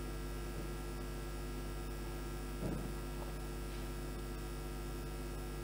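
Steady electrical mains hum with a ladder of overtones, picked up by the recording, with one faint short sound about halfway through.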